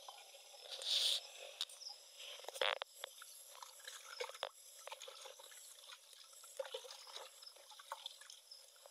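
Hands scooping and sloshing a liquid fertilizer mixture in a bucket, with scattered knocks and scrapes of handling. A louder swish comes about a second in, and a sharp knock a little under three seconds in.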